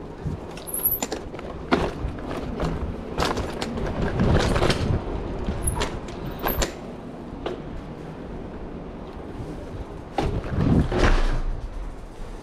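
Bicycle rattling and clunking as it is ridden slowly over uneven paving, with scattered sharp knocks; the loudest clatter comes about four to five seconds in and again about eleven seconds in.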